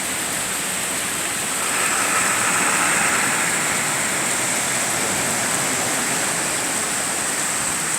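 Floodwater rushing steadily in a flash flood, a constant loud wash of water that swells a little about two seconds in.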